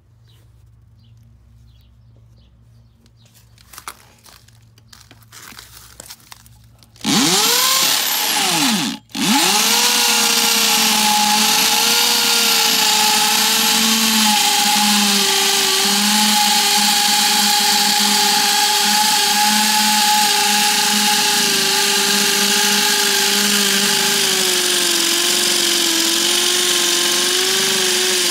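Corded Hammerhead hammer drill in hammer mode with a half-inch carbide-tipped masonry bit, boring into old concrete. The motor starts about seven seconds in, winding up in pitch, stops for a moment, then restarts and runs steadily with a whine that sags slightly under load.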